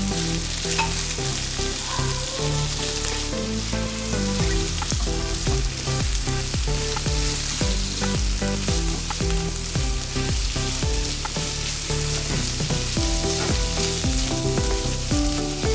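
Sliced chicken, onion and garlic sizzling in a pan as they are sautéed and stirred, with background music underneath.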